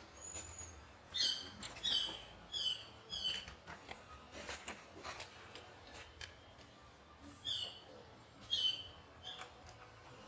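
Baby macaque crying with short, high-pitched falling squeals: a quick run of about six starting a second in, then another three or four near the end, with a few faint clicks in between.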